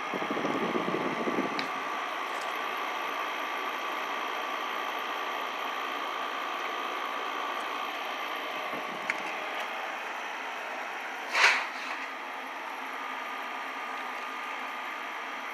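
Midea MAW08HV1CWT inverter window air conditioner running, a steady rush of air with a faint high hum. There is a click about 9 s in and a short burst of noise about 11 s in.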